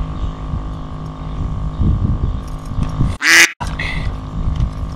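A steady low rumble with a faint hum, broken about three seconds in by a brief dropout and a short loud burst.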